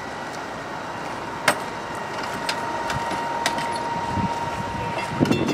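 Machinery running steadily with a constant whine, broken by a few sharp metallic clicks; the loudest click comes about a second and a half in.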